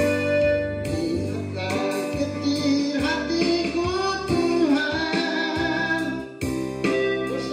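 Worship music: a woman's singing voice over keyboard and guitar accompaniment.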